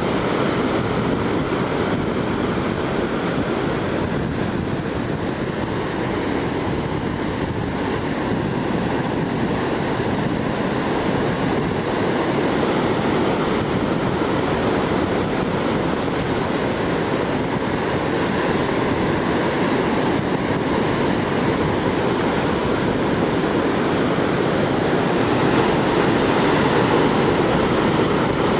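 Ocean surf breaking over rocks and the shore: a continuous rushing wash that swells a little louder near the end.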